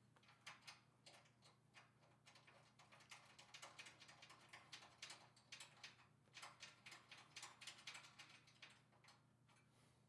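Faint, rapid clicking and light rattling of a 1U horizontal finger-duct cable manager being handled and fitted into a server rack.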